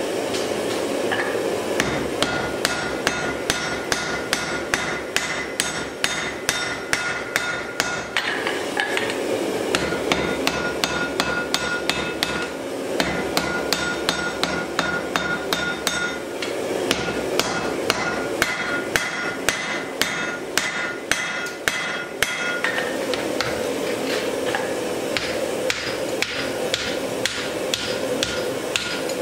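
Hand hammer forging red-hot wrought iron on a steel anvil: a steady run of blows, about two to three a second, each with a high ring from the anvil. The blows get lighter near the end.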